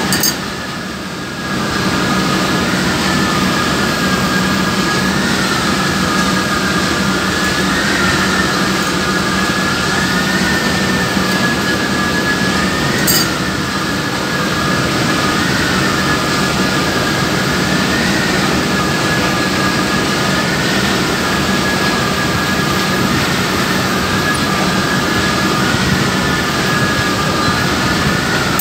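Machinery of a compressed-air plant running steadily: a constant hum and noise with a high whine that wavers slightly in pitch. One sharp click about thirteen seconds in.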